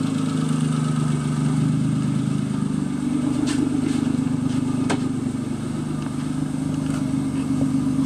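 Daewoo Matiz 0.8-litre three-cylinder petrol engine held at about 5000 rpm, a steady high-revving drone; its pitch steps up slightly about three seconds in.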